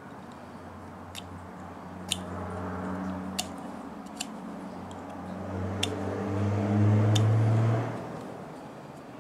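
A motor vehicle's engine drone passing by, swelling to its loudest about seven seconds in and then fading away. Six or so sharp clicks are scattered through it.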